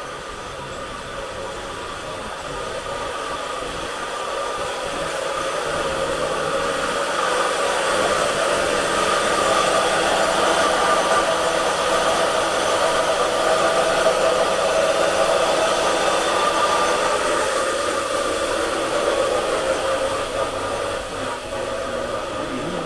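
A steady mechanical whirring drone that builds over several seconds, is loudest near the middle, and eases off toward the end.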